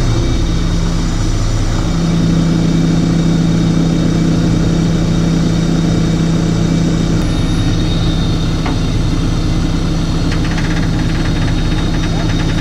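Tow truck engine running steadily, a level hum that strengthens about two seconds in. A short burst of rapid ticking comes in near the end.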